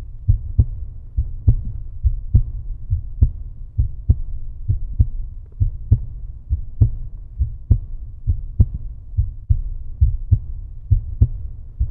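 A steady, deep thumping beat with a sharper tick a little under once a second, evenly spaced and without any melody.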